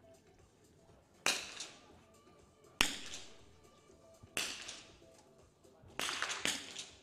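.22 rimfire target rifles fired in a shooting hall: five separate shots, each a sharp crack with a ringing echo that dies away. They come about a second and a half apart, except the last two, which are half a second apart.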